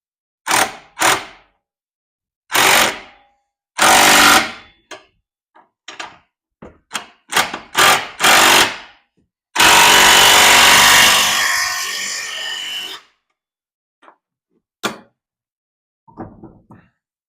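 A power tool run in a dozen short bursts of about half a second, then one longer run of about three seconds that tails off, working the fasteners of a hitch anti-rattle clamp as it is repositioned.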